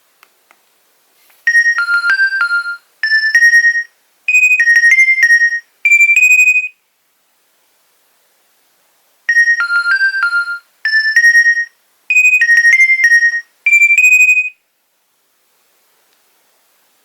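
Nokia 2300 mobile phone ringtone: a short melody of quick, high beeping notes played twice, with a pause of about two and a half seconds between the two rounds.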